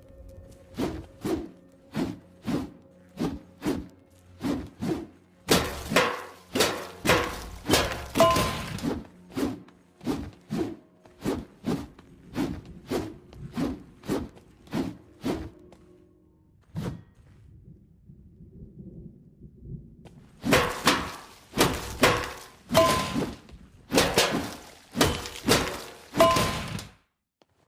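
A crowbar struck again and again, about two hard blows a second, some with a short metallic ring. After a pause there is a second quick run of blows.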